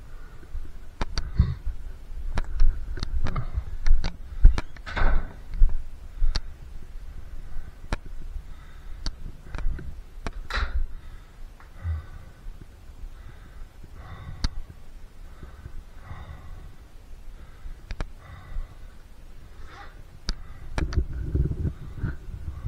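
Irregular sharp clicks and knocks with dull low thumps, like doors and gear being handled in a small room; they come thickest in the first six seconds and again near the end.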